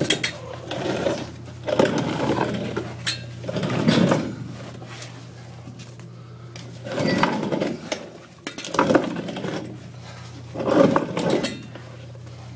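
Scuffs, bumps and metal clinks from a person crawling through a tight crawlspace tunnel, coming in irregular bursts every second or two over a steady low hum.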